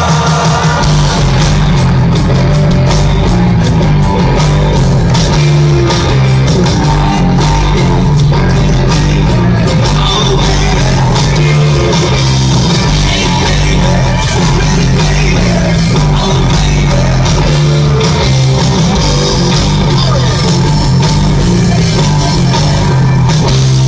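Live rock band playing loudly, with electric guitars, bass and drums and some singing, heard from within the audience with a heavy low end.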